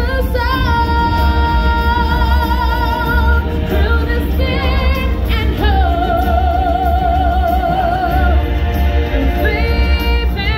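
Stage-show music with a singer holding long, high notes with a wide vibrato over a band with a heavy bass, changing to a new note every few seconds.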